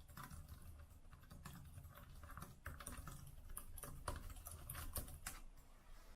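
Typing on a computer keyboard: quick, irregular keystroke clacks, several a second, with a few louder strokes about four and five seconds in.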